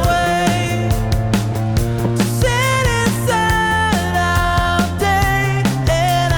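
Background music with a steady beat and a pitched melody line.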